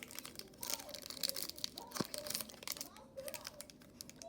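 Foil wrapper of a Pokémon booster pack crinkling and crackling in irregular bursts as it is being torn open by hand.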